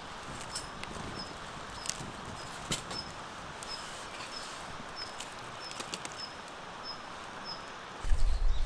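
Outdoor ambience: a steady hiss with a small creature repeating a short, high chirp about every two-thirds of a second, and a few sharp clicks. Near the end a loud low rumble starts suddenly.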